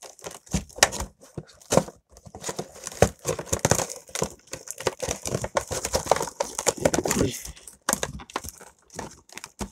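Clear plastic blister packaging of an action figure box being twisted and pulled, crinkling and crackling irregularly as it resists opening.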